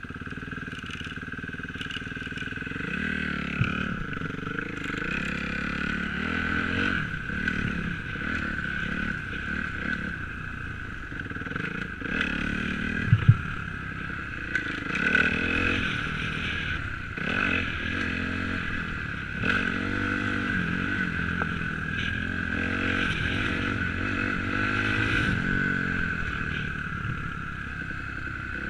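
Kawasaki KX250F's four-stroke single-cylinder dirt bike engine under riding load, revving up and down over and over through the corners and straights. A couple of sharp knocks come around halfway through.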